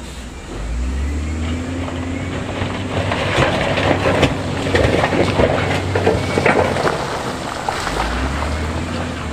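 Heavy diesel construction machine's engine working harder about half a second in, with loose stone and rock clattering and tumbling from about three to seven seconds as the stone is dumped or pushed.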